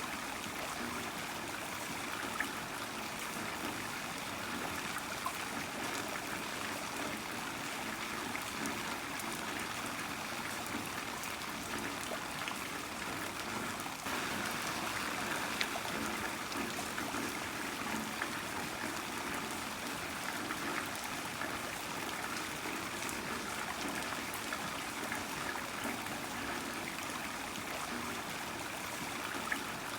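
Heavy rain falling steadily: an even hiss of water with many small drop ticks and splashes scattered through it.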